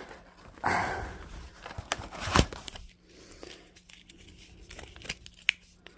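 A cosmetic mask sachet and its cardboard advent-calendar packaging being handled. There is a crinkly rustle about a second in, then a few sharp clicks and taps.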